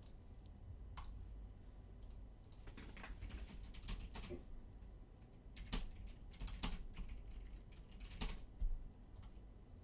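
Quiet typing on a computer keyboard: scattered keystrokes and clicks as a short line of text is entered.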